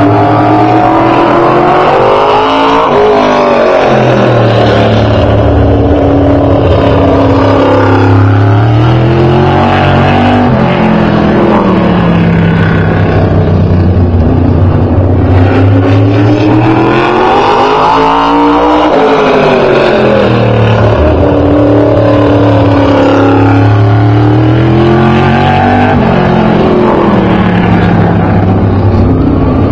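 Open-wheel modified race car running laps of a short oval track. The engine note climbs on the straights and drops off into the turns, two laps in all, loudest and sharpest as the car passes close by about three seconds in and again about halfway through.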